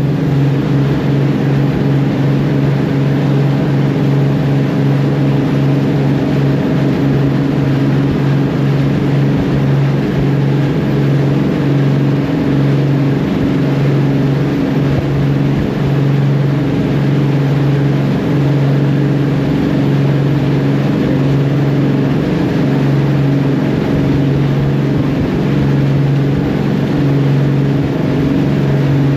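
An engine running steadily under way at constant speed: a loud, even drone.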